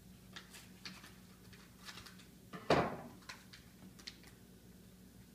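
Light, irregular clicks of small dogs' claws on a tile floor, with one loud knock a little over two and a half seconds in.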